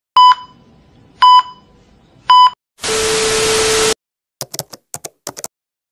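Old-film countdown leader sound effect: three short high beeps about a second apart, then about a second of loud static hiss with a steady hum in it, then a scatter of sharp clicks like film crackle.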